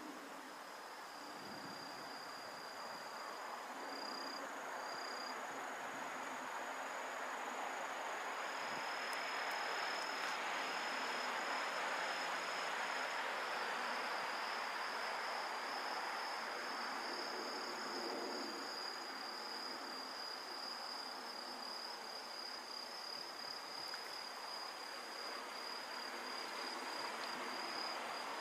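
Insects trilling steadily on a high, even pitch, with a second, thinner trill above it. Under them is a soft rushing background that swells about ten seconds in and eases off again.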